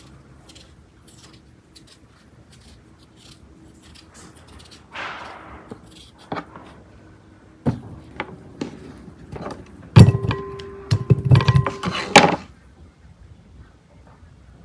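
Kitchen knife peeling and cutting raw potatoes on a wooden board: light clicks and a short scrape at first, then a quick run of sharp knocks in the second half, loudest for about two seconds, with a faint ringing tone through them.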